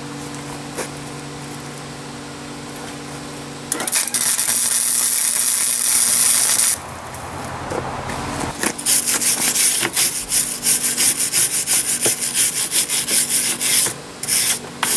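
Flux-core wire welder running a short weld bead on the steel patch: a crackling hiss for about three seconds, starting about four seconds in, over a steady hum. From about nine seconds in, a wire brush scrubs the fresh weld in rapid back-and-forth strokes.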